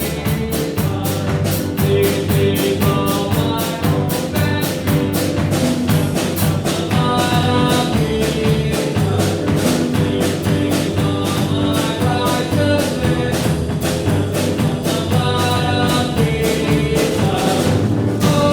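Upbeat church band music, with a drum kit keeping a fast, steady beat under pitched instruments.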